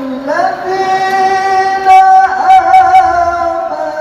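A man's voice in melodic Quran recitation (tilawah), gliding up into one long held, ornamented note that wavers near the middle. A few short sharp clicks sound under it about two to three seconds in.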